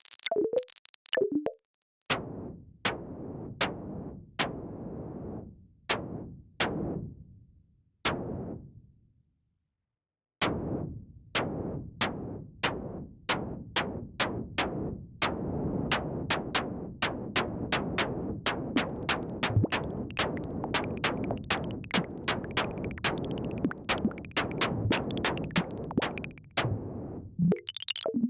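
Synthesized sound effects: sharp clicks, each followed by a fading hiss, about one a second at first. After a short silence they come back faster, two or three a second over a steady noisy bed, and stop shortly before the end.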